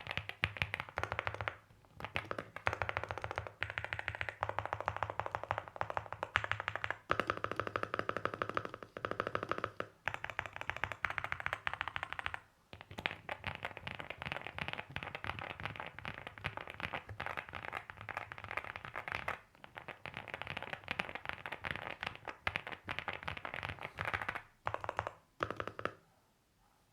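Continuous typing on a stock Leobog Hi8 mechanical keyboard with an FR4 plate, Wuque Studio Morandi 50 g pre-lubed linear switches and Retrocast ABS keycaps. It is a fast, dense run of keystroke clacks broken by a few short pauses, and it stops about a second before the end.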